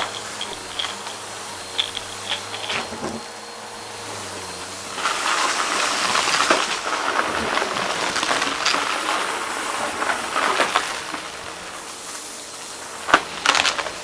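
Vacuum cleaner running with a steady hiss, sucking up a crunchy debris mix that crackles and rattles through it. The crunching is heaviest in the middle, with a couple of sharp clacks near the end.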